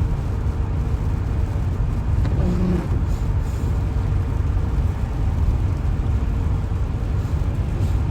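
Steady road noise of a car driving at highway speed in the rain, heard from inside the cabin: a low rumble with the hiss of tyres on wet pavement. A brief low hum sounds about two and a half seconds in.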